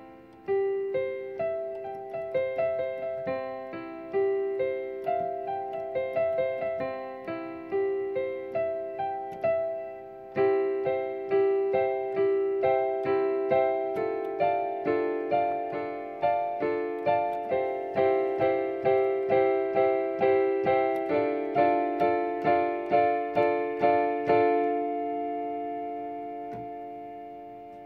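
Background piano music: a steady run of repeated keyboard notes, about two a second, ending on a held chord that fades out near the end.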